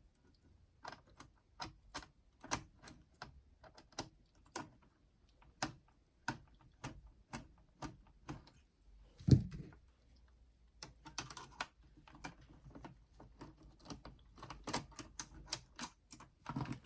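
Irregular small clicks and taps of a screwdriver working screws out of a plastic clock-radio housing, with a louder knock about nine seconds in and some brief scraping.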